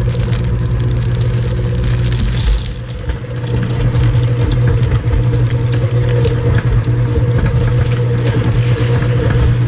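Electric stand mixer running steadily on low, its paddle attachment beating thick chocolate chip cookie dough in a steel bowl, with a brief dip in the motor's sound about three seconds in.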